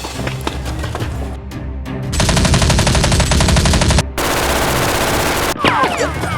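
Rapid automatic-gunfire sound effect, dubbed over toy Nerf blasters, over background music. It comes in two long bursts starting about two seconds in, then short falling whistles near the end.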